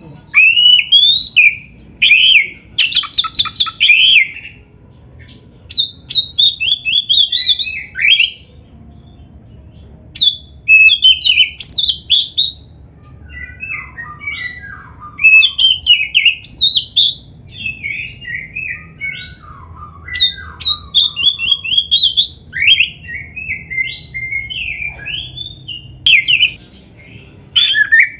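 Oriental magpie-robin (kacer) singing a fast, varied song of quick rising and falling whistles and chirps, with a pause of about two seconds some eight seconds in and a few lower phrases in the middle.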